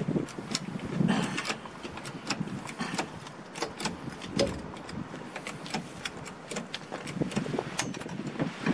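Hydraulic trolley jack being pumped by its long handle to raise the front of a small van: an irregular run of short metallic clicks and knocks.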